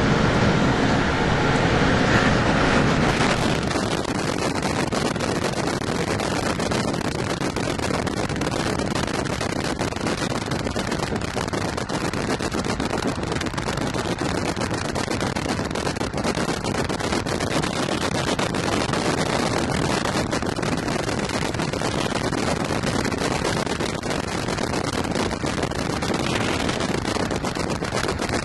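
Running noise of a moving passenger train heard from on board, changing abruptly about three seconds in to a steady rush of wind and rolling noise at an open train window.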